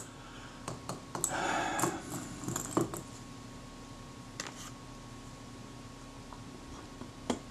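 Small metal hand tools handling a camera's brass gears and steel top plate: a short scrape about a second in, a few light clicks, and one sharper click near the end, with a steady low hum behind.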